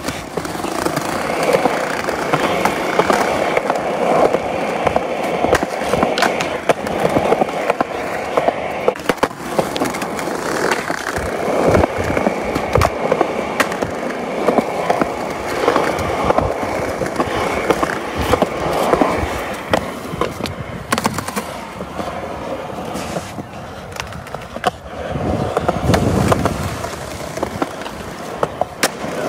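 Skateboard wheels rolling on smooth concrete, with many sharp clacks of the board hitting the ground on pops and landings. About 25 seconds in, the rolling turns into a louder, deeper rumble.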